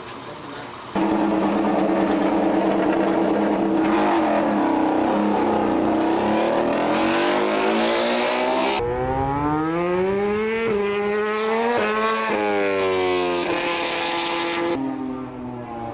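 Honda RC213V MotoGP racing motorcycle's V4 engine. It comes in loud about a second in, revving hard, then climbs in pitch as the bike pulls away. Later it accelerates through the gears, the pitch rising and dropping sharply at each upshift, then falls as the rider brakes and changes down for a corner.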